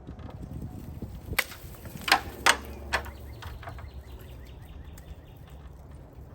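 Four sharp woody cracks in quick succession between about one and three seconds in, the middle two loudest, as a broken crepe myrtle branch is tugged down from its canopy. A steady low rumble lies under them.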